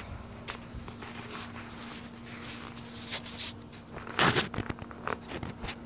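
Scattered rustling and scuffing from someone moving about and handling the camera close to stacked wooden pallets, the loudest a short scrape about four seconds in, over a steady low hum.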